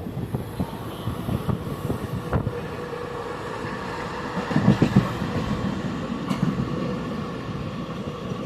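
Passenger train running on the rails: a steady rumble with faint steady tones, growing louder for a moment about halfway through.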